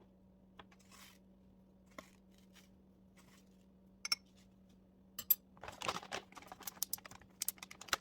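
Light kitchen handling sounds: scattered clicks and knocks of utensils and dishes, then a longer stretch of rustling and tearing from about five and a half seconds in, over a steady low hum.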